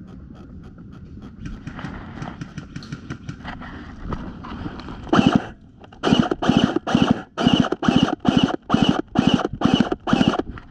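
Footsteps moving over crunchy ground, first quieter and uneven, then from about five seconds in a steady run of loud crunching steps, about three a second.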